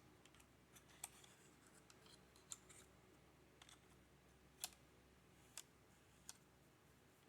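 Faint, scattered sharp clicks, about half a dozen spread unevenly over several seconds, from the plastic keys and keycaps of a mechanical keyboard being handled during cleaning.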